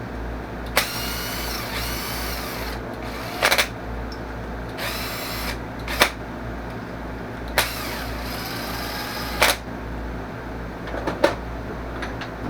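Workshop power tool running with a steady low hum, with sharp metallic clicks every second or two and brief high ringing between them.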